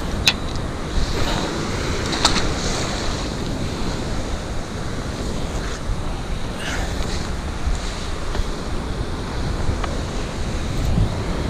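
Sea surf washing against a rocky breakwater, with wind buffeting the microphone. Two sharp clicks near the start.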